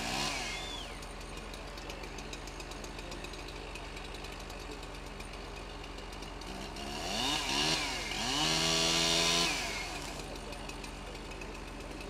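Chainsaw idling, revved up and back down briefly near the start and again about seven seconds in. It is then held at high revs for about a second before dropping back to idle.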